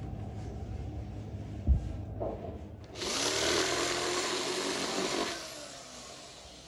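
Electric drill boring a hole through a motorcycle helmet shell. The drill starts about three seconds in, runs steadily for about two seconds, then winds down; a single thump comes shortly before it.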